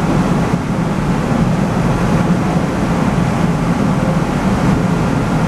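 Steady low mechanical drone of shipboard machinery.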